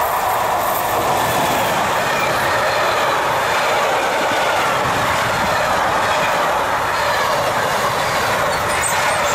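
Freight train passing close by: a DB class 185 electric locomotive goes by, then a long string of mixed freight wagons rolls past, the wheels running on the rails in a loud, steady rumble.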